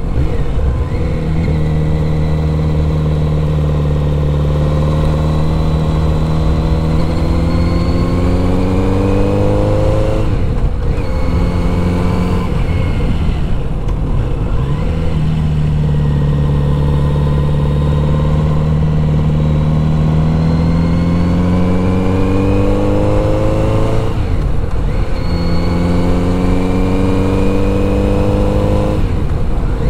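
Kawasaki Z900RS's inline-four engine pulling uphill in a fairly low gear. Its pitch climbs steadily for several seconds at a time and drops abruptly four times as the throttle is rolled off or a gear is changed.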